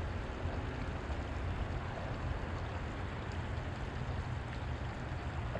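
Steady outdoor ambience: an even rushing hiss over a low rumble, with no distinct knocks or rhythm.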